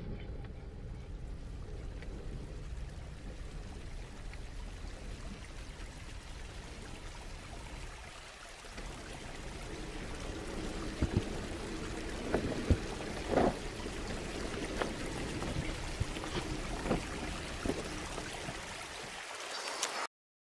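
Radio-controlled scale rock crawler creeping over rock, under a steady hiss, with sharp knocks and clicks of its tyres and chassis against stone in the second half.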